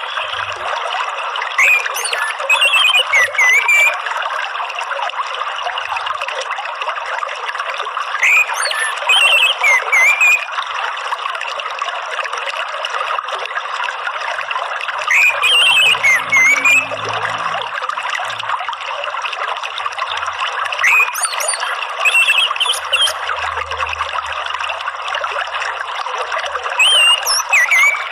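Steady running water, with a songbird, an orange-headed thrush, singing a short whistled phrase about every six seconds, five phrases in all.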